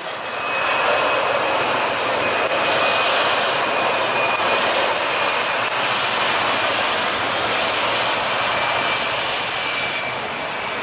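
An Airbus A320's twin jet engines at high thrust on the takeoff roll: a steady, loud rush carrying a high-pitched whine. The sound builds over the first second, then holds, easing slightly near the end.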